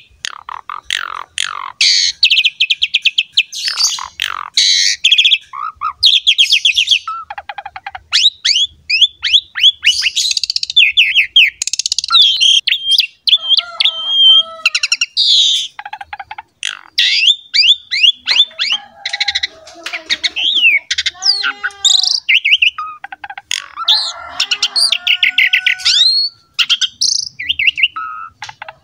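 Javan pied starling (jalak suren) in full song: a rapid, nearly unbroken run of chirps, whistles and trills, with some lower, rounder notes mixed in during the second half.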